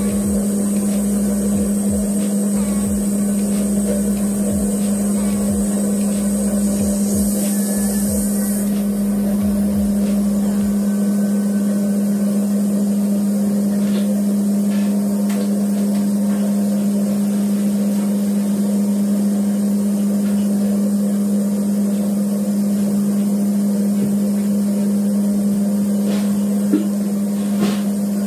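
Steady machine drone with a strong, unchanging low hum, and a few faint ticks near the end.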